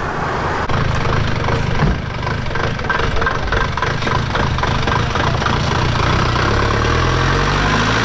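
A motor vehicle's engine running steadily, rising in pitch near the end.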